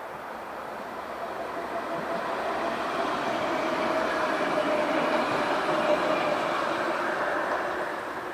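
Alstom Citadis tram passing by on its rails: the rumble of wheels on track with a steady whine, growing louder as it approaches, loudest in the middle, and fading near the end as it moves away.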